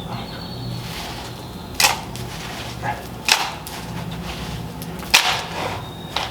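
Sharp knocks and clacks, three louder ones roughly a second and a half apart with a couple of lighter ones between, typical of handling and fitting PVC pipe and fittings.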